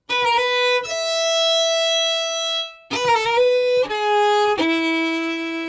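Short solo violin phrase for a logo jingle. It rises to a long held note, breaks off briefly near the middle, then steps down through a few notes to a long low note near the end.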